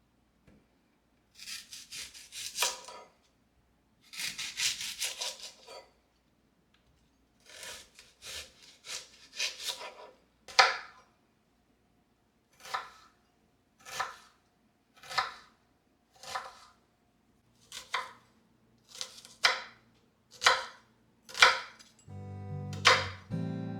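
Knife chopping food on a cutting board: two quick runs of strokes, then single chops about one a second.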